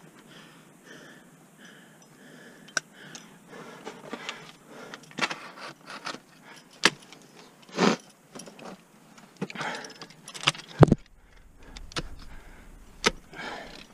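Ice axe picks striking into snowy ice, a string of sharp hits spaced a second or two apart, the heaviest about eight and eleven seconds in. Carabiners and ice screws on the climber's harness jangle between the strikes.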